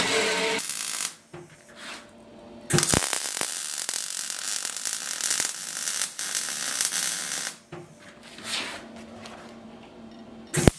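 Metal-cutting band saw running through a steel bar, stopping about a second in. Then a MIG welder crackling steadily for about five seconds as it lays a weld.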